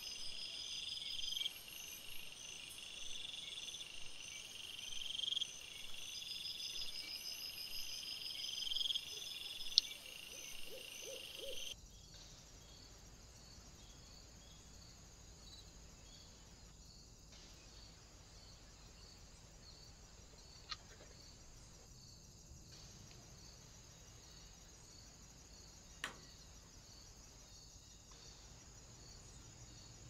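Crickets chirping at night in repeated pulsing trills, each a second or two long, for about twelve seconds. Then the sound cuts off abruptly to a faint steady hiss, broken twice by a short click.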